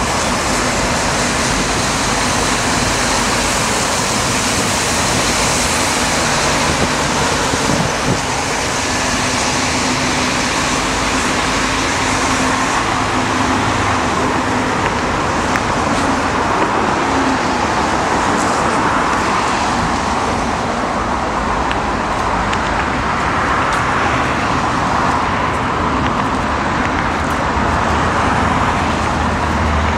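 Steady traffic noise from a wide multi-lane city road: a continuous rush of passing cars with no single vehicle standing out.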